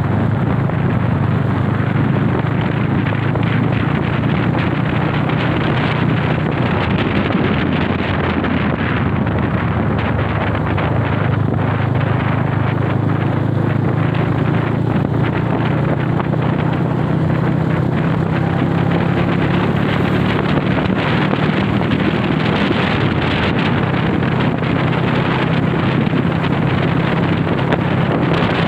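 Honda CB motorcycle engine running steadily while riding, its pitch shifting slightly with the throttle, with wind rushing over the microphone.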